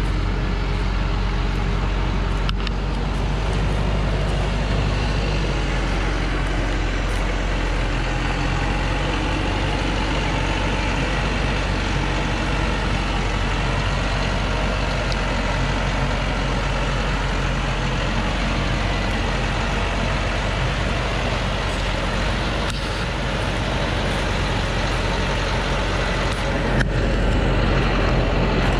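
Thaco Forland truck's diesel engine running steadily while it pulls a heavy load of acacia logs over a soft dirt track. It gets a little louder near the end.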